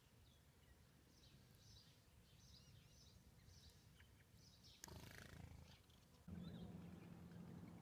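Faint, scattered bird chirps and calls over near silence. About five seconds in comes a brief rush of noise, and from about six seconds a low steady hum joins.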